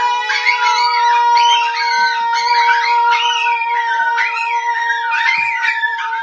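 Dogs howling along to music, several wavering, rising-and-falling howls overlapping over long held notes.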